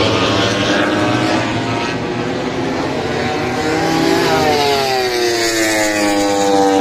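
MotoGP racing motorcycle engines running at high revs on the circuit. About four seconds in, a loud engine note falls steadily in pitch as a bike goes by.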